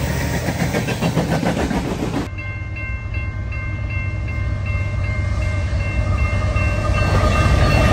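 Union Pacific diesel freight locomotives passing close, with a loud rumble and wheel clatter. After about two seconds this gives way to the lower rumble of an approaching BNSF freight train, under a steady, regularly repeating high ringing that grows louder toward the end.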